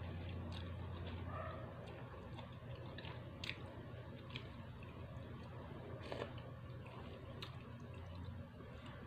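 Close-up eating sounds of instant noodle soup: slurping and chewing, with a few sharp clicks of the spoon and chopsticks against the bowl.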